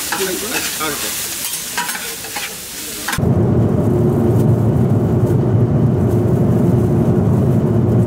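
Noodles and vegetables sizzling on a hot griddle, with metal spatulas scraping and clicking against the plate. About three seconds in it cuts abruptly to a loud, steady low rumble.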